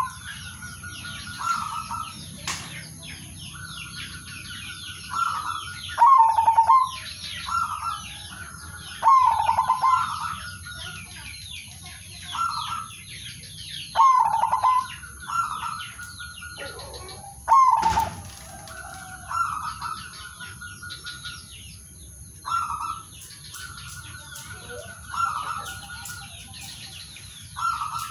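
Male zebra dove (perkutut) singing its territorial song of soft, staccato coos to call rivals, a short phrase every few seconds. Busy high chirping runs behind it, and there is one sharp knock about 18 seconds in.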